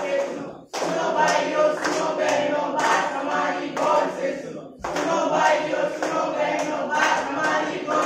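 A group of voices singing a song, with hand claps keeping a steady beat. The sound cuts out briefly twice, just under a second in and again near five seconds in.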